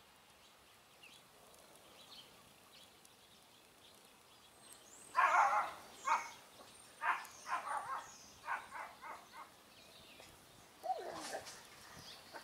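An animal calling: a run of about nine short calls starting about five seconds in, then a longer call falling in pitch near the end. Beneath it, faint crackling from small oak pieces catching fire in a smoker's firebox.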